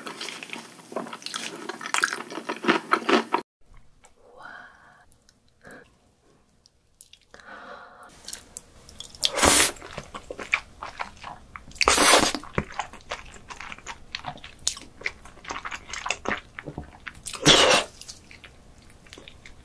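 Close-miked eating sounds of raw king crab: wet chewing and slurping, then after a quieter pause, chewing on a crab leg with three loud bites about halfway through, then later, then near the end.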